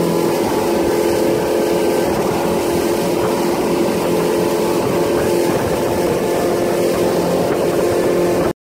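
Fishing boat under way at speed: a steady engine drone with wind and water rushing over the hull. It cuts off suddenly near the end.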